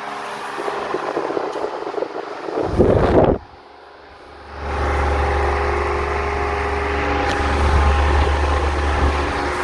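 Antique Britânia SL 30 cm desk fan running with a steady motor hum. Near three seconds in there is a loud clatter, then about a second of much quieter sound, after which it runs louder with a deep rumble.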